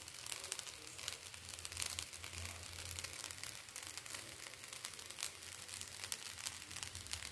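Faint, irregular crackling of fried rice in a hot steel kadai, with a low steady hum underneath.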